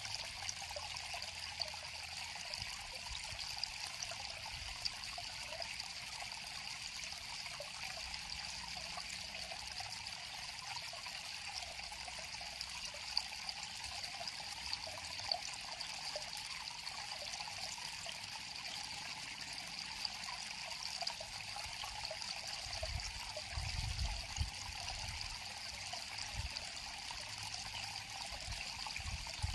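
River water flowing and trickling steadily, an even rushing hiss with no break.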